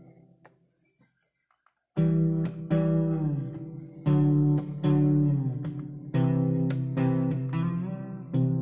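A fretless guitar played solo. A plucked note rings out and fades, then after a short silence comes a series of plucked notes, several sliding smoothly up or down in pitch between notes, as only a fretless neck allows.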